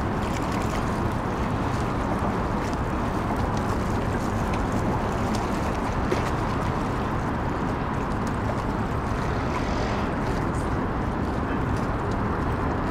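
Steady low rumble of a river cruise ship under way, mixed with the wash of the water and some wind noise, with a few faint ticks over it.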